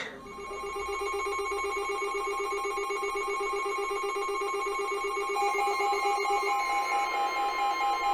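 Electronic alert tones from an Emergency Alert System broadcast: a rapidly pulsing, ringing set of steady tones that changes about five and a half seconds in to a higher pulsing tone over a steady tone.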